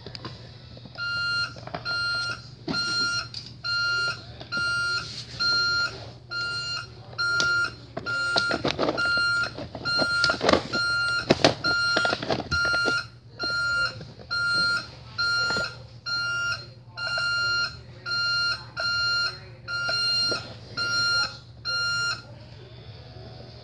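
Toy garbage truck's electronic reversing beeper, one high beep repeating evenly a little more than once a second, as the truck backs up. Some plastic clattering is heard in the middle.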